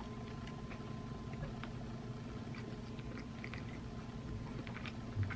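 Faint chewing of a cheeseburger and fries, with small scattered mouth clicks over a steady background hum, and a soft low thump near the end.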